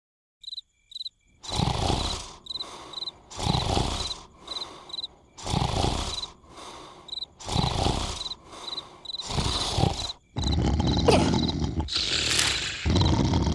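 Cartoon snoring: one loud snore about every two seconds, over steady high chirps repeating about twice a second. From about ten seconds in, a louder continuous noisy sound takes over.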